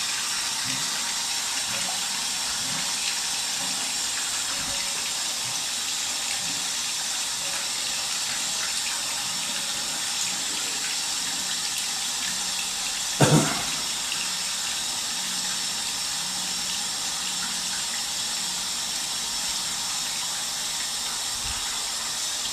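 Water running steadily out of a water heater tank's open drain port while it is flushed under full supply pressure, a constant hiss that carries out loosened mineral sediment. A short, louder sound breaks in once, about 13 seconds in.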